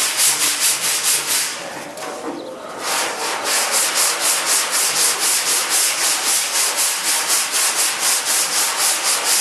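Hand sanding: sandpaper rubbed back and forth in quick, even strokes, about four or five a second, with a short pause a couple of seconds in.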